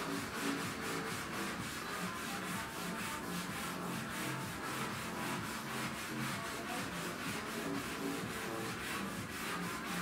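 Rapid, even scrubbing at a kitchen counter, about four strokes a second, kept up without a break.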